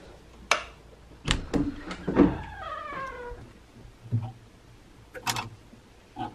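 A cat meows once about two seconds in, one long call falling in pitch. Around it come sharp clicks and clatter from clothes hangers being pushed along a closet rail.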